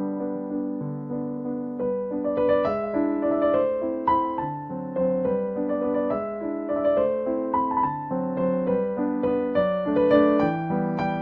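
Background music: a gentle electric piano playing a flowing melody over a repeating chord pattern.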